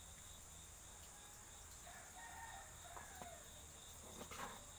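Faint ambience: a rooster crowing in the distance about two seconds in, over a steady high buzz of insects, with a brief rustle of the cardboard box being handled near the end.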